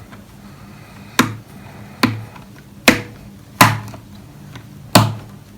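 Sharp knocks on the hollow plastic casing of a Redmi TV soundbar while its case screws are being fitted: five hits, irregularly spaced about a second apart, each followed by a brief low ring.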